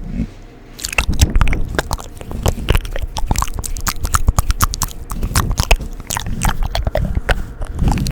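Close-miked ASMR mouth sounds: a dense run of quick wet clicks and smacks, starting after a brief pause about a second in.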